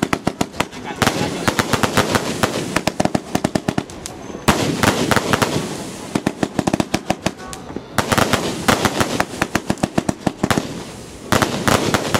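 Aerial fireworks bursting overhead. A loud burst comes about every three and a half seconds, and each is followed by a dense run of sharp crackling pops.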